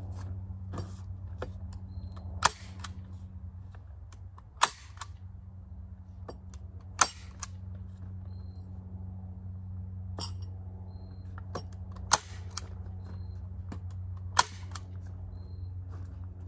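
Manual staple gun firing staples through plastic sheeting into a wooden cold frame: five sharp snaps a few seconds apart, with fainter clicks between them. A steady low hum runs underneath.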